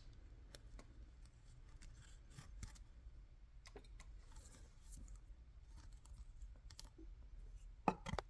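Faint, irregular clicks and taps of small plastic diorama kit parts being handled and unclipped, with a slightly louder cluster of clicks near the end.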